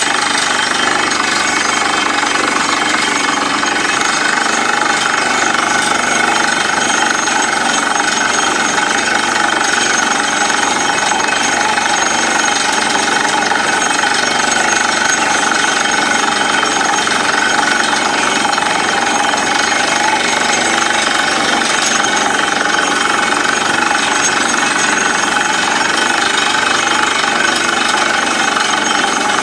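Borewell drilling rig drilling rock with its down-the-hole air hammer: a steady, rapid hammering over the run of the rig's engine and compressed air, which blows rock dust up out of the hole.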